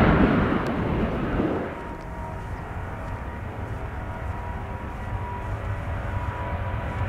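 Jet airliner engine noise, loud at first, dropping off sharply about two seconds in. A quieter steady low rumble with faint thin steady tones remains.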